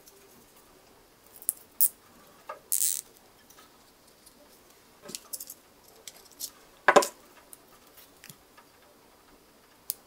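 Hands handling a plastic cable tie and a Swiss Army knife: scattered small clicks and rattles, a short scraping hiss about three seconds in, and a sharp knock about seven seconds in, the loudest of them.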